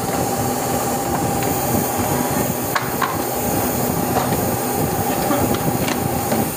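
Plastic moulding machine running: a dense, steady mechanical noise with a steady high whine that cuts off near the end. A few sharp clicks sound over it.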